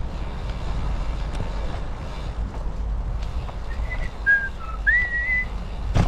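A person whistling a few notes of a tune about two-thirds of the way in, the last note sliding up and held, over the steady low rumble of riding a bicycle.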